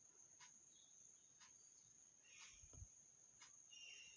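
Near silence: faint room tone with a steady high-pitched whine and soft ticks about once a second.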